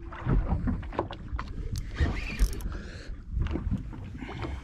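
Wind buffeting the microphone on a boat at sea, an uneven low rumble, with scattered sharp clicks and knocks.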